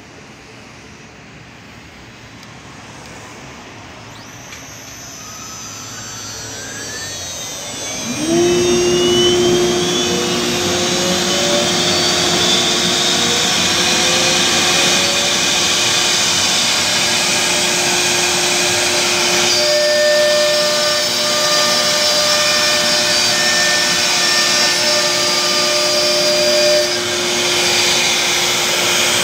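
CNC router spindle spinning up with a rising whine over several seconds, then running steadily at full speed. About twenty seconds in, the sound takes on extra steady tones as the bit routes a groove into the wood board.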